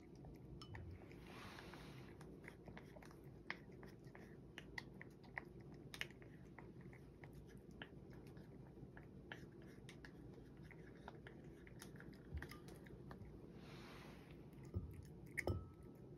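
A cat eating: soft, irregular chewing with many small mouth clicks and smacks, a few louder clicks near the end.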